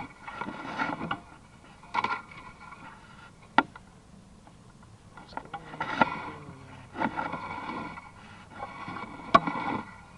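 Irregular scraping and rustling with three sharp knocks, typical of a sewer inspection camera's push cable being fed and handled.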